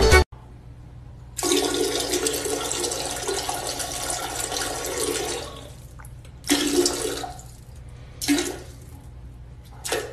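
Toilet flushing: a rush of water for about four seconds, then fading, followed by a few shorter bursts of sound.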